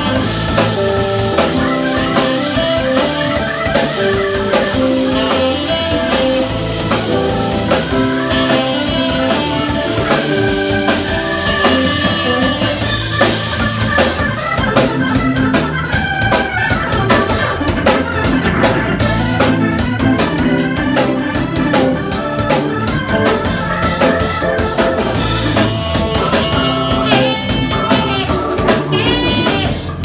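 Live instrumental band of organ, electric guitar, saxophone and drum kit playing, with the organ prominent. The drummer's cymbals get busier from about halfway.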